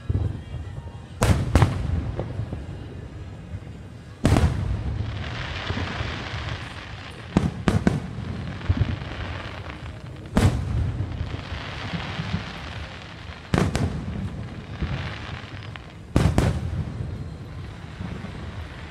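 Aerial fireworks shells bursting, a sharp boom every couple of seconds, some in quick pairs. Several bursts are followed by a lingering crackle.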